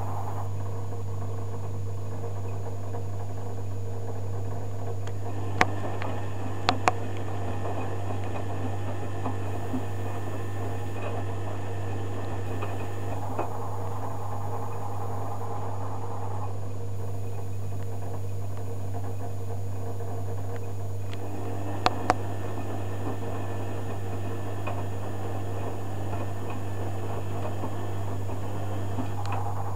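Zanussi FJ1093 Jetsystem washing machine tumbling wet laundry in a cotton wash: the drum motor runs for several seconds, pauses, then runs again, over a steady low hum. A few sharp clicks come as each run begins, about five seconds in and again past twenty seconds.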